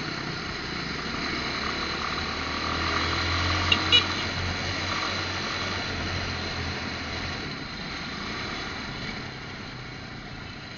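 Motorcycle ride in traffic: steady engine hum under road and wind noise, with two short sharp sounds close together about four seconds in.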